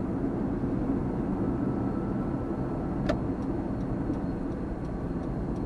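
Steady engine and road noise of a 2005 Suzuki APV being driven, with a sharp click about three seconds in followed by faint, evenly spaced ticking.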